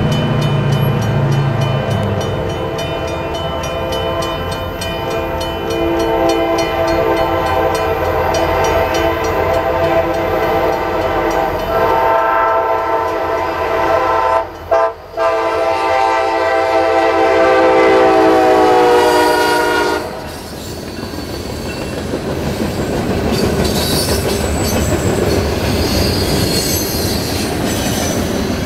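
Freight locomotive's air horn blowing a long, loud chord for the grade crossing, growing louder and dropping in pitch as the engine passes, then cutting off about two-thirds of the way through. A crossing bell rings rapidly under the horn at first. After the horn stops, the freight cars rumble by with wheel clatter and high wheel squeal.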